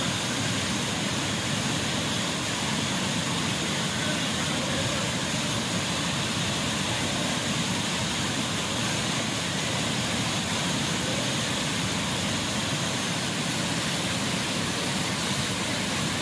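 Steady, loud rush of whitewater cascading over rocks and churning around the people standing in it.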